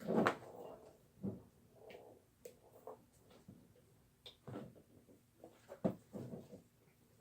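Slime being stirred in a bowl as it is activated: irregular soft sticky squelches and light clicks.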